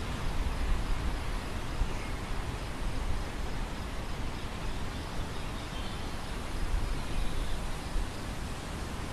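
Wind blowing across an open grain field, with gusts rumbling on the microphone about a second in and again around seven seconds in.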